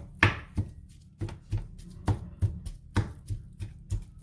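A kitchen knife chopping vegetables on a cutting board, in quick regular strokes of about three a second.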